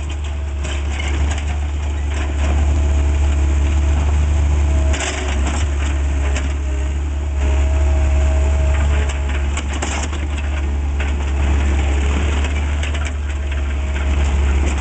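Diesel engines of a Cat 303.5 mini excavator and a tracked skid steer running steadily under load, while steel buckets scrape through and crunch broken asphalt chunks, with louder bursts of crunching about five and ten seconds in.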